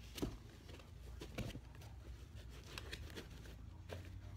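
An AR-15 rifle is set by hand into a foam cut-out in a hard rifle case and pressed down, making a few soft knocks and rubs against the foam and case. The first knock, just after the start, is the loudest. A faint low hum runs underneath.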